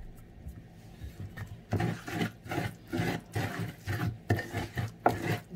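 Wooden pestle grinding wet pepper paste against a wooden mortar, working a crumbled Maggi seasoning cube into it. After a quiet start it settles into rhythmic rubbing strokes, about three a second.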